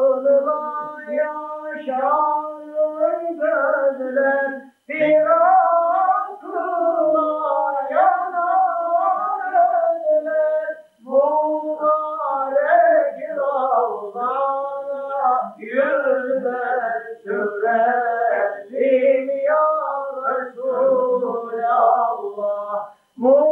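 A solo voice singing long, ornamented phrases whose notes slide up and down, with no instrument heard. There is a brief break about eleven seconds in.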